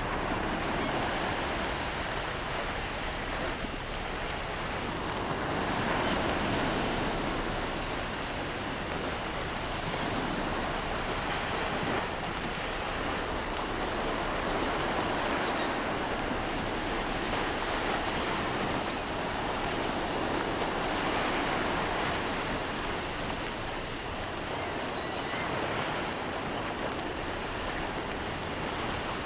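A steady rushing noise, swelling and easing every few seconds.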